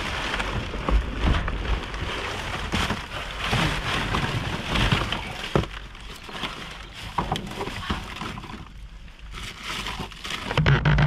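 Plastic bags crinkling and cardboard and loose trash shifting and knocking as someone rummages through a dumpster by hand, with irregular knocks throughout.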